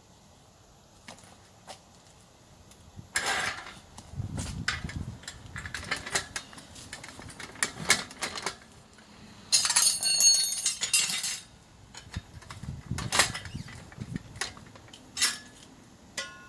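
Metal tools clinking, knocking and scraping on a motorcycle wheel during a tyre change. The clanks are irregular, with one longer scrape with metallic ringing about two-thirds of the way through and a brief ringing clink near the end.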